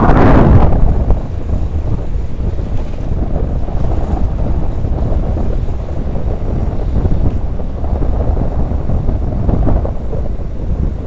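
Wind rushing over the microphone of a camera mounted on a moving mountain bike, a steady low rumble. It is strongest in a gust right at the start and eases after about a second.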